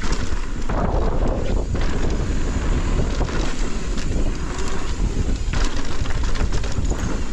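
Wind rushing over the camera microphone during a fast mountain-bike descent on a dirt trail, mixed with tyre noise and knocks and rattles from the bike over bumps.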